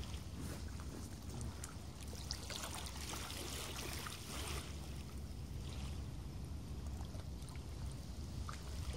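Water lapping and sloshing in a shallow lake margin, with small splashy clicks, over a steady low rumble of wind on the microphone.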